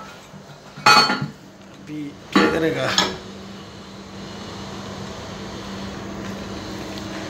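Metallic clinks of an adjustable wrench on a toilet's floor bolt, two ringing clanks in the first three seconds. A steady low hum follows.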